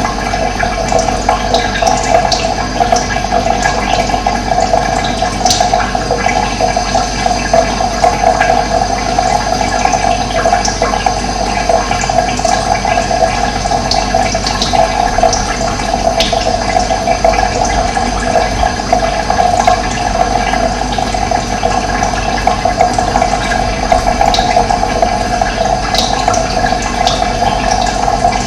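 Running water rushing steadily, with occasional short, faint high bird chirps over it.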